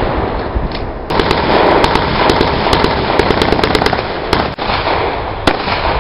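Guns firing blanks: an irregular run of about a dozen sharp shots, some in quick succession, over a steady rushing noise.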